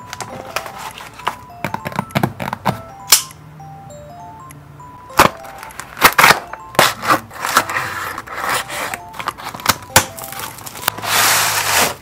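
Cardboard shipping box being handled, tapped and set down, then its packing tape slit with a box cutter, giving a run of sharp clicks and knocks and a dense rustle of tape and packing near the end. Soft background music with plinking notes plays throughout.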